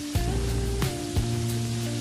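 Background music: sustained bass and chord notes with a beat of sharp percussive hits.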